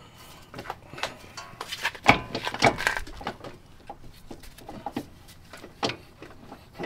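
Irregular metal clunks and clicks from a car's front brake rotor, caliper and steering knuckle being handled and worked loose from the strut, with a louder run of clatter about two to three seconds in.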